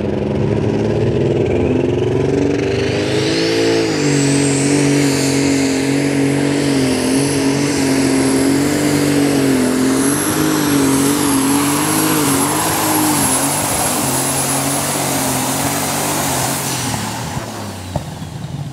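Super Stock pulling tractor's multi-turbocharged engine running flat out under load during a pull, with a high turbo whistle that climbs over the first few seconds and then holds while the engine note wavers. About 17 seconds in the whistle fades and the engine eases off.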